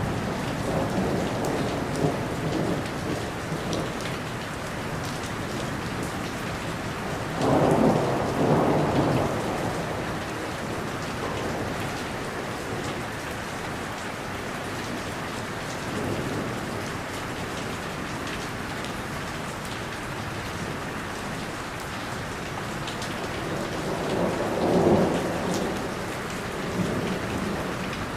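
Steady rain falling, with thunder rumbling under it; two louder rolls of thunder come about eight seconds in and near the end.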